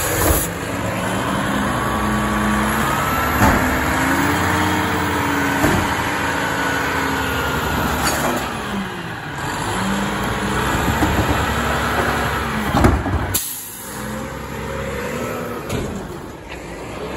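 Automated side-loading recycling truck working its hydraulic arm to grab, lift and dump a wheeled cart: the engine and hydraulics rise and fall in pitch, with several clanks as the cart is handled.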